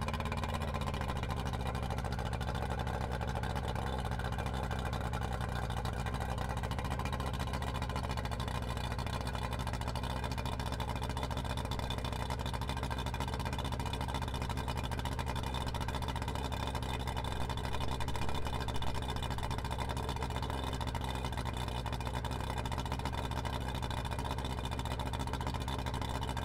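2006 Yamaha 90 hp two-stroke outboard running steadily at low revs on a garden-hose flushing attachment, in gear with the propeller spinning. This is a test run after the water pump impeller has been replaced. The revs settle slightly in the first second, and the sound stops abruptly at the end.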